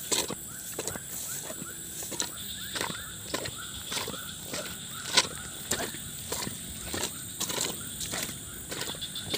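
Footsteps walking briskly along a wet, muddy path through grass, about two to three steps a second. A steady high-pitched buzz runs behind them.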